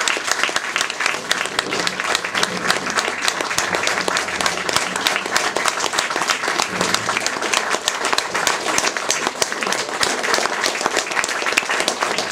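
Audience applauding: dense, even hand-clapping.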